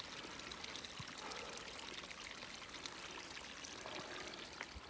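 Small mountain stream running steadily over rocks, a faint, even sound of flowing water.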